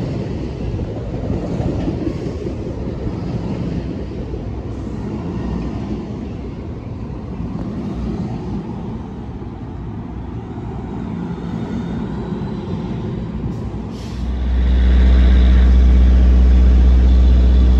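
Train of NJ Transit bi-level coaches rolling along a station platform: a steady rumble of wheels on rail that eases a little midway. About fourteen seconds in the sound cuts abruptly to a much louder, steady deep rumble.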